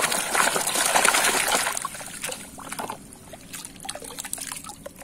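Muddy water splashing and sloshing in a plastic tub as a hand swishes a toy bulldozer through it. After about two seconds it dies down to quieter trickling and dripping as the toy is lifted out of the water.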